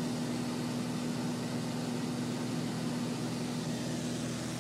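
Cabin drone of a 1979 Cessna 182Q Skylane in flight: its six-cylinder Continental O-470 engine and propeller running steadily, a strong even hum over a constant rushing noise.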